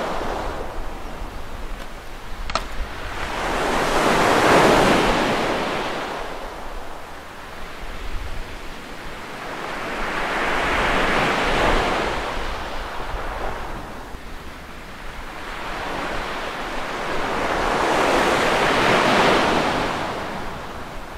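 Surf breaking on a beach, swelling and fading three times about every seven seconds, over a low rumble of wind on the microphone. A single faint click about two and a half seconds in.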